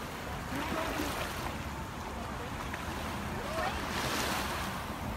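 Small lake waves lapping at the shore, washing in twice with a soft hiss, over a steady low rumble of wind on the microphone.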